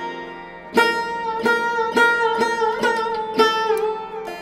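Background instrumental music: a plucked string instrument plays a slow run of notes, about two a second, over a held drone. A few notes bend in pitch.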